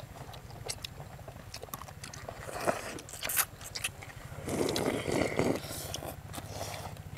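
Several people slurping and chewing rice noodles (num banh chok), with small clicks of chopsticks and spoons on bowls; a louder run of slurping about four and a half seconds in. A steady low hum sits underneath.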